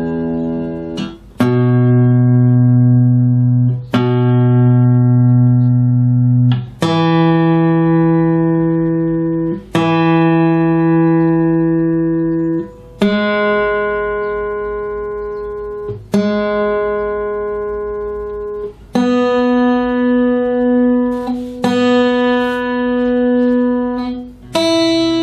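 Guitar in open D tuning with a capo on the 2nd fret, its open strings plucked one at a time, low to high, for tuning. Each string is struck about twice and left to ring for around three seconds, so the pitch steps upward string by string.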